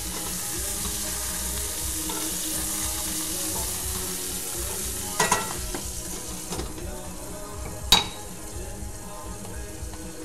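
Food sizzling and frying in a stainless steel skillet as it is stirred with a wooden spatula. The sizzle is strongest at first and eases off after about six seconds. Two sharp knocks come about 5 and 8 seconds in, the second louder.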